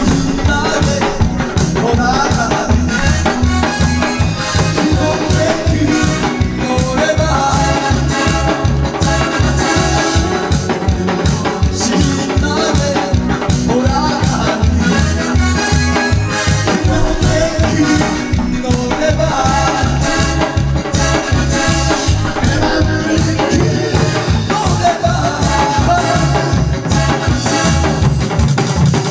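Instrumental music with a steady fast beat and a heavy bass line.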